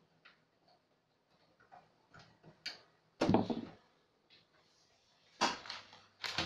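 Computer case hardware being handled and fastened: a few light clicks, then two louder clattering knocks about three and five and a half seconds in, and a short knock at the end.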